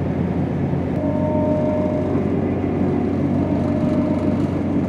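Diesel passenger train running, heard from inside the carriage: a steady low rumble of engine and wheels on the rails, with a faint high whine that comes in about a second in and again near four seconds.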